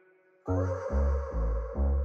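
Background electronic music with a synthesizer, starting after a short silence about half a second in, carried by a deep, steady bass beat about twice a second.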